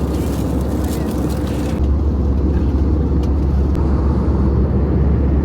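Steady low rumble of a moving vehicle, with the sound changing abruptly about two seconds in.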